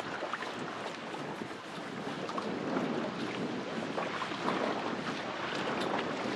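Strong wind blowing across the microphone in an even rushing noise, with a few faint irregular taps.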